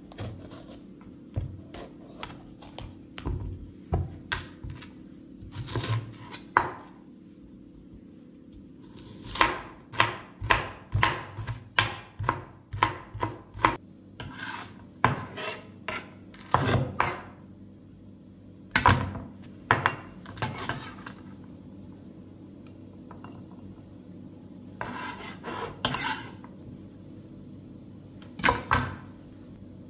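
Chef's knife dicing a green bell pepper on a plastic cutting board: a series of sharp chopping strokes, in quick runs of a few a second around the middle and again near the end, with pauses between runs.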